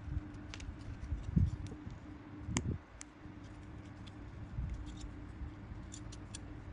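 Scissors snipping a small paper-covered blank, then light clicks and rustles as the cut piece is handled, over a steady low hum.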